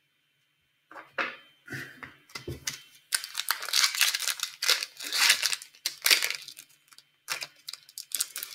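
An Upper Deck hockey card pack's shiny wrapper crinkling and tearing as it is opened by hand. It starts about a second in and is densest in the middle.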